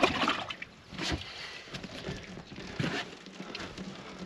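About three short bursts of splashing, rustling and knocking as a large northern pike is handled in a landing net and lifted out of it.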